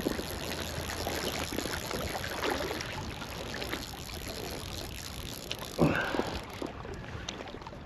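Small waves lapping and splashing against a float tube on a lake, with a brief louder sound about six seconds in.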